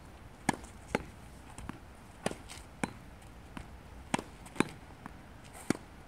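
A tennis ball being rallied off a practice wall: sharp pops of the racket strings meeting the ball, the ball hitting the wall and bouncing on the hard court. The loud hits come in pairs about half a second apart, repeating every couple of seconds, with softer bounces between.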